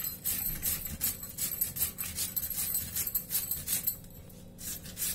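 Raw potato being grated on a hand grater: repeated rasping strokes, about two to three a second, with a short pause about four seconds in.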